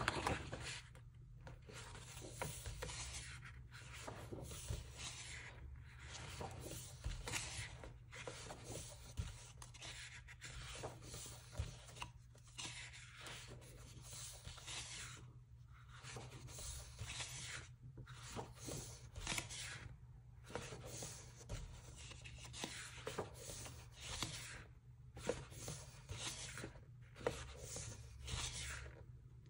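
Pages of a thick photobook being turned one after another: irregular soft swishes of paper and of hands rubbing over the pages, with short pauses between them.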